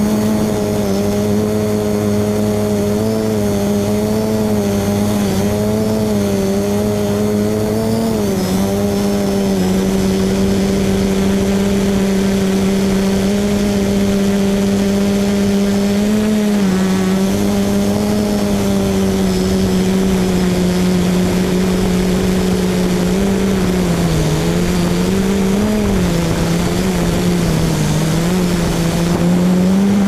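VC-450 quadcopter's motors and propellers droning steadily while it hovers, a steady hum whose pitch wavers a little as the flight controller holds position, dipping and rising again several times near the end.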